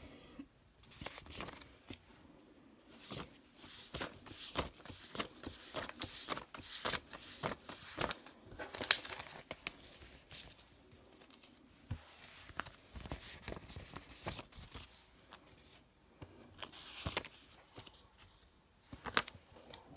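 Canadian polymer banknotes being handled, counted out and laid down on a tabletop: irregular crinkling and snapping of the plastic notes with many short clicks.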